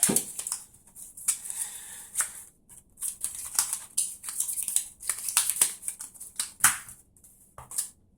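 Trading cards being handled on a table: a string of sharp taps, clicks and sliding rustles, irregularly spaced, as cards are placed and moved.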